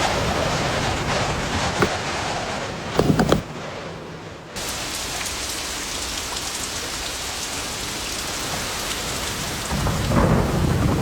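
Heavy rain pouring steadily, with deep thunder rumbling near the start and again near the end. A short cluster of loud sharp hits comes about three seconds in, and the rain sounds quieter and duller for about a second afterwards.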